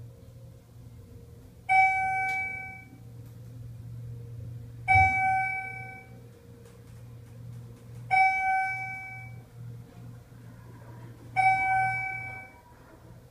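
Elevator floor-passing chime dinging four times, about three seconds apart, once for each floor a Schindler hydraulic elevator car passes on the way up. Each ding rings out for about a second over the steady low hum of the hydraulic pump motor lifting the car.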